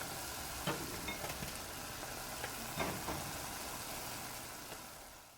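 Seafood and mushrooms frying in butter and olive oil in a large pot, a steady sizzle with a few clicks of a spoon stirring against the pot; the sizzle fades away near the end.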